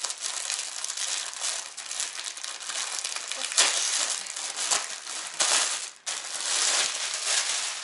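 Clear plastic garment bag around a folded T-shirt crinkling as it is handled, with louder rustles about halfway through and again a couple of seconds later.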